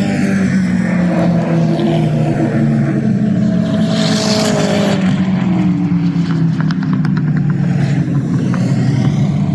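Historic touring race cars running hard around a circuit, several engine notes rising and falling through the gears. One car, a Volvo 240, passes close about four seconds in, briefly louder and brighter.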